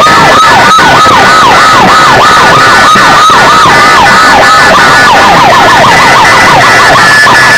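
A siren-style sound effect played very loud through a DJ sound-competition speaker system, distorted: a tone swoops down and back up about three times a second, then quickens to a faster warble for the last couple of seconds.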